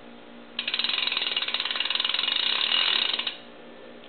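BMX rear hub ratcheting: its freewheel pawls click rapidly as the wheel spins freely, starting about half a second in and stopping a little after three seconds. Not as loud as many hubs, but still loud.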